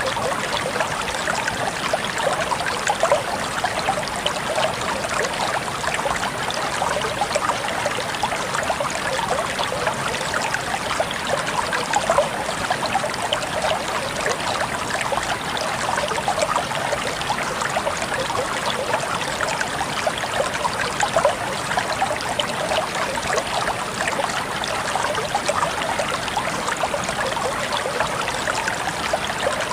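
Waterfall: water falling and splashing steadily, a dense, even rush with many small splashes.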